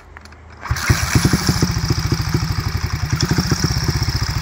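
1952 Moto Guzzi Airone Sport's 250cc horizontal single-cylinder four-stroke engine being kick-started: it catches a little under a second in and settles straight into a steady idle with a rapid, even beat.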